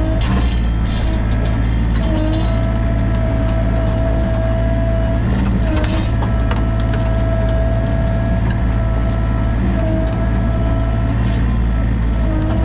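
Sany mini excavator's diesel engine running steadily under work, with a higher hydraulic-type whine that dips briefly every few seconds and occasional light knocks.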